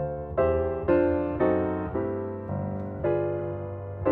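Background piano music: notes and chords struck about twice a second, each fading before the next.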